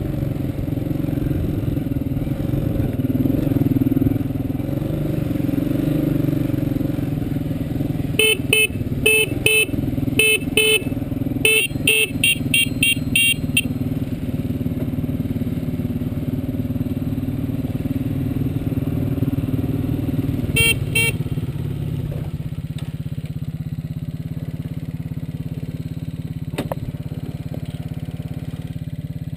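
Dirt bike engine running under way, then settling to a steady idle in the last third. Its horn is tooted in a string of about a dozen short beeps a little over a quarter of the way in, and twice more about two-thirds through.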